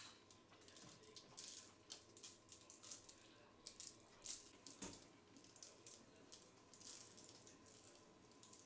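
Cane sugar sprinkled by hand onto egg-washed dough on a baking tray lined with parchment paper: a faint, irregular patter of falling grains.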